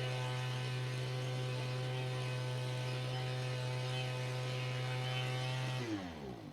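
Gas leaf blower engine running at a steady speed, a steady pitched drone, then shut off about six seconds in, its pitch sliding down as it winds down.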